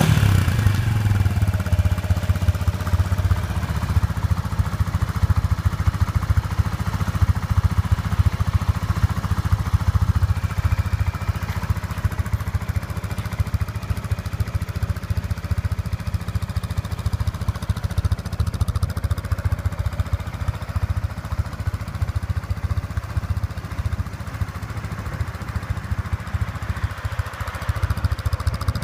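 Yamaha Majesty S scooter's single-cylinder four-stroke engine idling through an SP Tadao Power Box Full 'S' stainless aftermarket muffler, a steady low exhaust pulse. It settles back to idle from a throttle blip at the very start.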